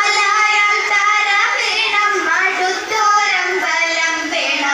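Female singing of a Thiruvathirakali song: a slow melody of long held notes that bend and glide.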